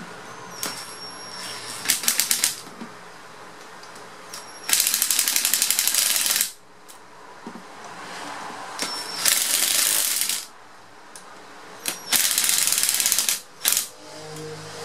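Ryobi cordless impact driver driving screws into the end cover of an electric motor: four bursts of rapid hammering, the longest nearly two seconds, with brief whirs of the driver between them.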